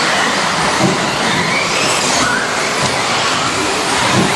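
Several electric off-road RC buggies racing on a carpet track: overlapping motor whines rising and falling in pitch as they accelerate and brake, over a steady hiss of tyres and drivetrains.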